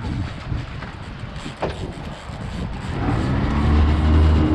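Boat's outboard motor running, picking up to a louder, steady hum about three seconds in. A single sharp knock about one and a half seconds in.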